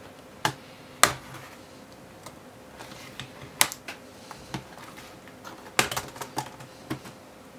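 Irregular sharp plastic clicks as the keyboard of a Lenovo ideaPad 500-15ISK is pried up by hand and its retaining clips snap free of the palm rest, with a quick cluster of clicks about six seconds in.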